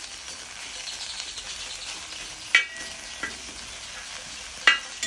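Curry leaves sizzling in a hot pan as they are dry-roasted and stirred, their moisture cooking off. The stirring spoon knocks against the pan twice with a short ring, about two and a half and four and a half seconds in.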